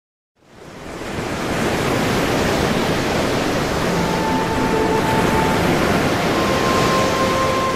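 Steady roar of ocean surf and wind, fading up after a brief silence, with faint held music notes coming in about halfway through.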